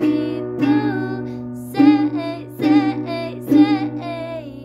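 A woman singing her own song while strumming an acoustic guitar in a slow rhythm, about five strums, the last chord left to ring out near the end.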